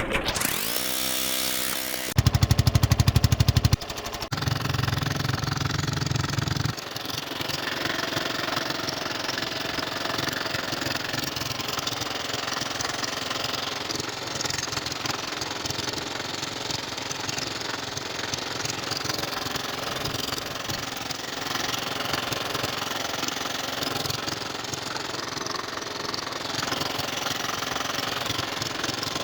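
Small boat engine running with a fast, even beat. It revs up about a second in, runs loudest for a couple of seconds, then settles to a steady run.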